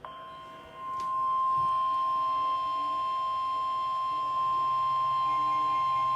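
NOAA Weather Radio warning alarm tone, a single steady high tone near 1050 Hz, sounding the alert for a weather warning. It comes up to full level about a second in and then holds unbroken.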